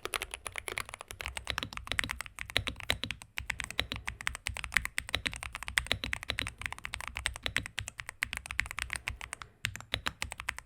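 Typing on a mechanical keyboard: a fast, uneven run of key clacks, with a brief pause about nine and a half seconds in.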